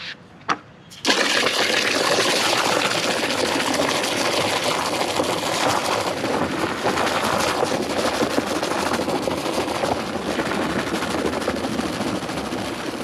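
Water spraying hard and steadily to foam up car shampoo, a loud even hiss that starts about a second in and stops near the end.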